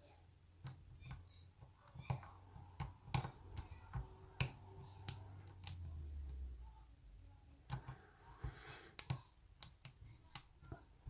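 Lock pick and pry-bar tension tool working inside a Bi-lock oval padlock: irregular small sharp metal clicks and taps, about two a second, with a brief rustle of handling near the end.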